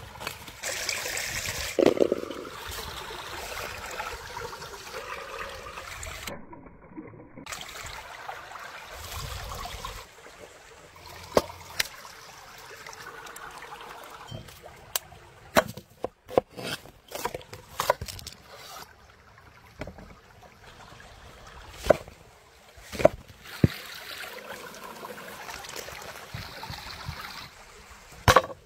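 A small stream running steadily beside a wood fire, under the close sounds of food being handled; a string of sharp knocks and clicks comes in the middle stretch.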